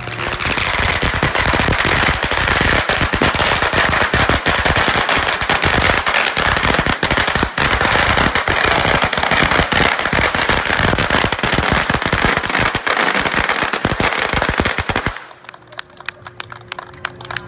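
A long string of firecrackers going off in a rapid, unbroken crackle of bangs, stopping abruptly about fifteen seconds in.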